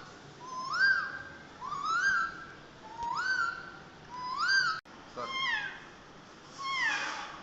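An animal calling over and over, about once a second. The first four calls rise then fall in pitch, and the last two slide downward.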